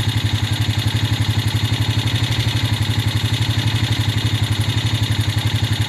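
Idling engine of a handlebar-steered farm vehicle, running steadily with a fast, even pulse.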